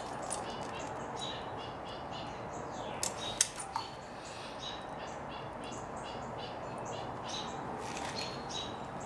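Birds chirping throughout, with a few light clicks about three seconds in as a plastic electrical plug is handled.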